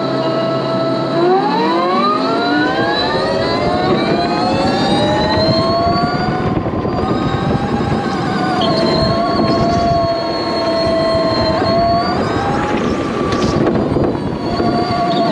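Electric go-kart motor whine. It is steady at first, then climbs sharply in pitch as the kart accelerates away about a second in, and after that falls and rises with the kart's speed, over a steady rushing noise.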